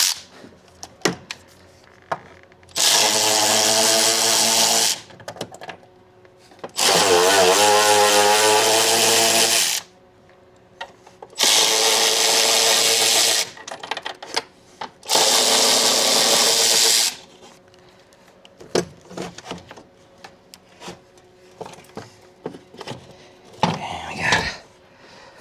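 A hand-held power tool, such as a drill or power ratchet, runs in four bursts of two to three seconds each, its motor whine wavering in pitch. Light clicks and knocks of tools on metal sound between the bursts.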